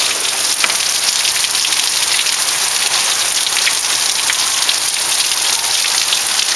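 Heavy rain falling steadily on a grassy yard and patio: a dense, even hiss with the fine patter of many drops.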